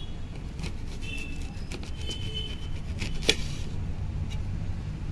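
A kitchen knife slicing an apple into thin rounds over a steel plate, with a few sharp clicks, the loudest about three seconds in, over a steady low rumble.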